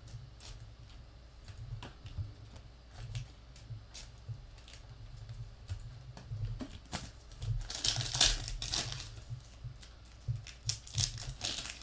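Foil trading-card pack wrapper crinkling and tearing as it is opened, amid small clicks and taps of cards being handled. The crinkling is loudest about eight seconds in and again near the end.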